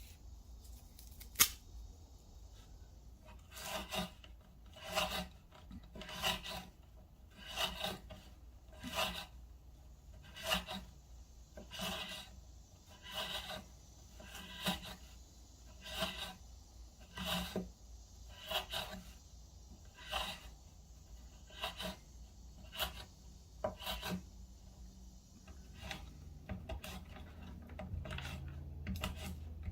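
Kansept Main Street folding knife's Wharncliffe blade making a steady series of cutting strokes, roughly one every second and a half, after a single sharp click near the start.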